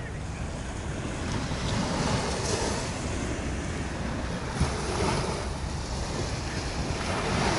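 Surf washing on the beach in slow swells, with wind on the microphone.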